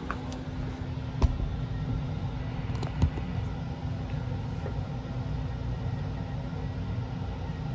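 A steady low hum and rumble, with two short knocks about a second and three seconds in, as the phone camera is handled and moved.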